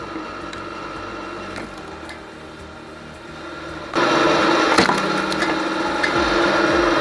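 Wood-processing machine running steadily, then about four seconds in a sudden, much louder, dense noise of wood being broken up, with a few sharp cracks.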